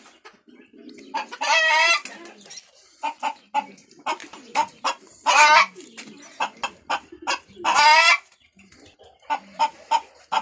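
A flock of chickens clucking, with many short clucks and three longer, wavering calls that stand out as the loudest sounds.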